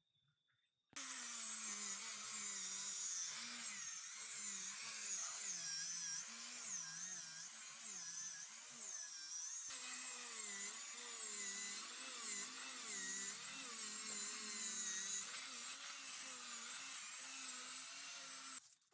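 Power tool motor running, its whine wavering up and down in pitch. It starts abruptly about a second in and cuts off just before the end.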